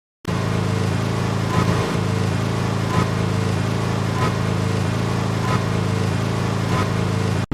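Cartoon rocket engine sound effect firing: a steady, loud, rushing rumble that starts suddenly after a short silence and cuts off abruptly near the end.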